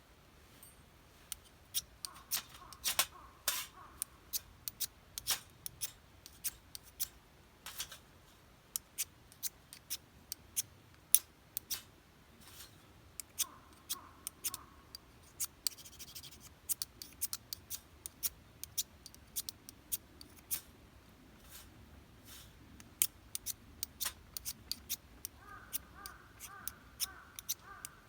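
Campfire crackling: irregular sharp pops and snaps from burning wood. Three short runs of a faint pulsing chirp come and go in the background.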